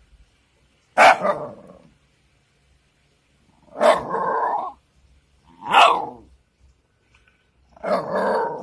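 Shiba Inu barking four times, about two seconds apart; the second and fourth barks are longer and drawn out.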